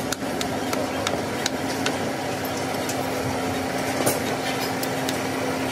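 A few sharp, scattered metallic knocks as freshly cast brass pump parts are struck with a metal rod to break off the burnt mould sand, over a steady mechanical hum.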